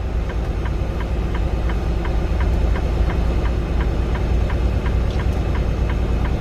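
Semi truck's diesel engine running at low speed, heard from inside the cab as a steady low rumble, with a light regular ticking about three times a second.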